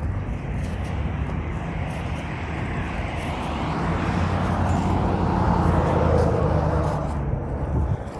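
A vehicle passing by: a low rumble and noise that swell over a few seconds, are loudest about six seconds in, then fade.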